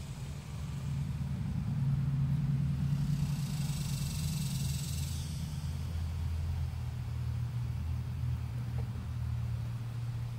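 A low motor rumble with a steady deep hum, swelling up about a second in and holding, with a brief hiss near the middle.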